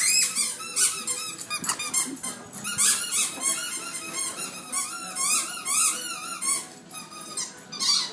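Rubber squeaky toy squeaked over and over in quick, uneven runs, as a French bulldog puppy chews and shakes it in play.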